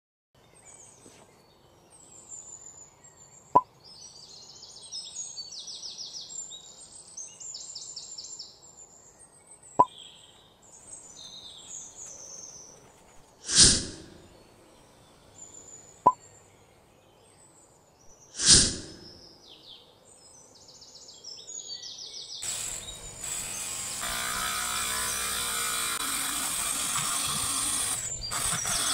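Birds chirp faintly, with a few sharp clicks and two louder swishes. About two-thirds of the way in, a small handheld rotary tool with a thin cutting disc starts cutting a wooden scale: a steady hissing grind that becomes the loudest sound.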